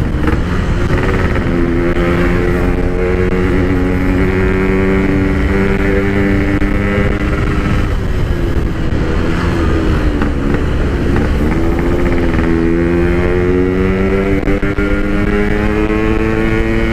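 Yamaha RX-King two-stroke engine breathing through a Packing Power PK1 aftermarket exhaust while riding, a soft, mellow exhaust note. It holds fairly steady revs, drops and wavers in pitch about halfway through, then pulls up in revs toward the end.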